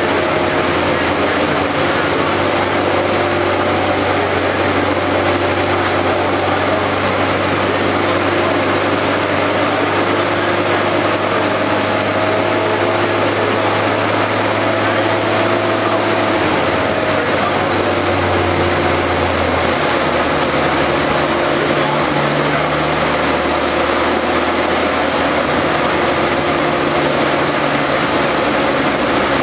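Freshly rebuilt 2005 Suzuki Hayabusa inline-four engine idling steadily over a broad hiss, its engine speed shifting slightly about two-thirds of the way through.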